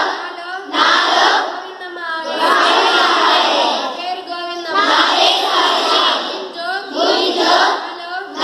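A group of schoolgirls chanting Sindhi phrases in unison, in short phrases with brief dips between them.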